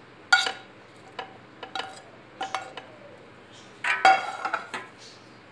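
A spoon clinking and scraping against a frying pan as topping is scooped out, several separate sharp ringing clinks; about four seconds in, a louder clatter of cookware.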